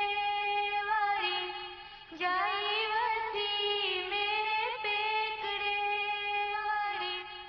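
A woman singing a folk song unaccompanied or nearly so, in long held notes with small ornamental turns, pausing briefly about two seconds in.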